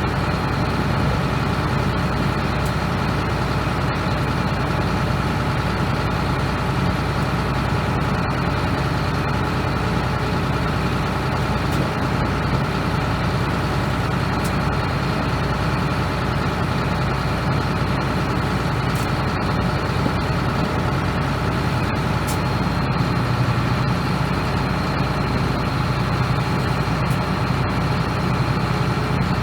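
John Deere 9500 combine's diesel engine idling steadily.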